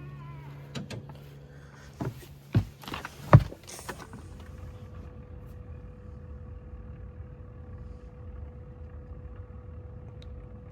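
A few sharp clunks and knocks in and around a car, the loudest about three and a half seconds in. Then a steady low hum with a faint even tone.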